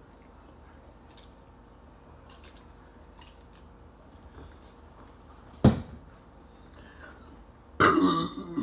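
A person chewing chicken nuggets, with faint wet mouth clicks, one sharp knock a little over halfway through, and a loud, sudden vocal burst near the end.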